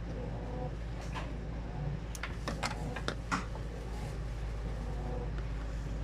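A handful of short, sharp clicks as insulated spade connectors and a plastic connector block are worked off a washing machine's water inlet valve terminals, most of them between about one and three and a half seconds in, over a steady low hum.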